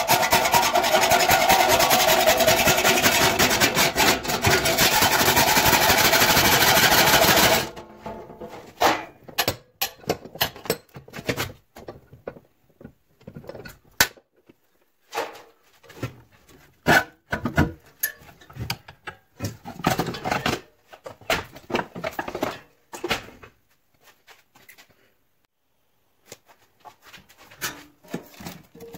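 Hand hacksaw cutting through the sheet metal of a dryer door held in a vise: fast, continuous rasping strokes for about seven and a half seconds that stop suddenly. After that come scattered short knocks and clatter.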